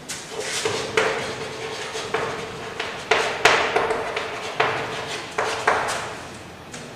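Chalk writing on a chalkboard: irregular sharp taps and short scratchy strokes as letters are written, about ten strokes over several seconds.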